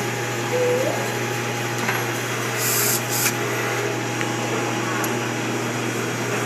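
Steady mechanical hum of a machine or ventilation running in the workshop, with a few light clicks as screws and a driver bit are picked up off the wooden workbench, and two short hisses about halfway through.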